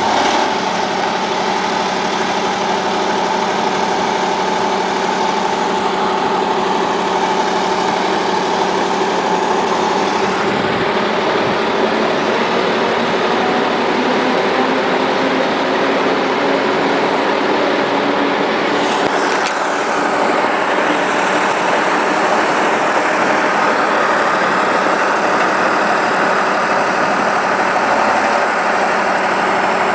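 Engine of a railway repair vehicle idling steadily, an even hum that holds constant throughout, with a brief high-pitched squeak a little past halfway.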